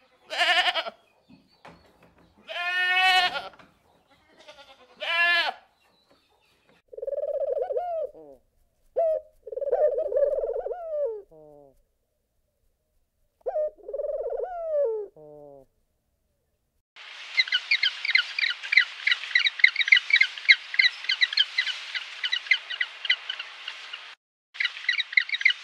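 A run of animal calls: a few wavering bleats in the first seconds, then several short, lower calls with pauses between them. From about two-thirds of the way in, many birds chirp busily together.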